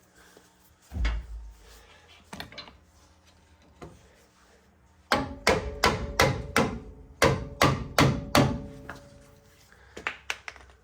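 A single heavy thump, then a quick run of about a dozen sharp knocks, roughly three a second, with a few more knocks near the end.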